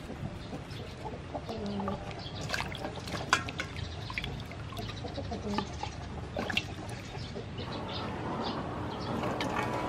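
Vegetables being washed by hand in a steel bowl of water: splashing, dripping and small knocks of produce against the bowl, with a watery hiss building near the end. A few short clucking calls sound in the background.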